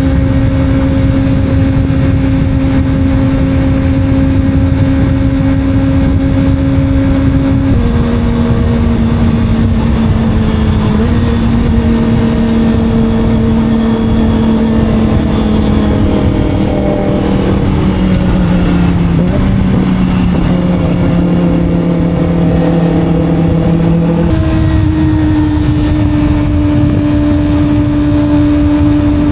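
250 cc Kawasaki sport bike engine running under way, with wind rushing over the helmet microphone. The engine note holds steady, drops a step about eight seconds in, sinks slowly for a while, then jumps back up near the end.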